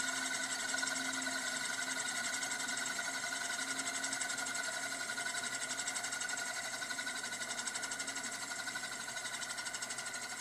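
Euler's Disk, a heavy steel disc, spinning and rolling on its mirrored base with a fast, steady whirring rattle that fades slowly near the end.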